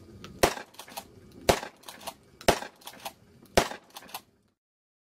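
Remington 870 Express Tactical 12-gauge pump-action shotgun firing birdshot, four shots about a second apart, with fainter clacks between them. The sound cuts off abruptly near the end.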